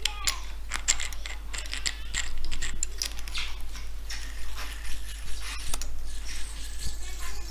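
Hand work on the machine's cast metal parts: irregular metal-on-metal clicking and scraping.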